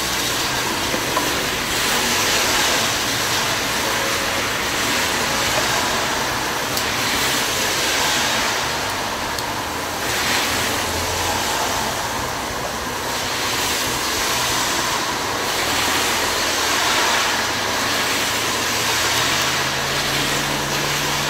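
Steady rushing noise of road traffic, swelling and easing every few seconds, with a low engine hum coming in near the end.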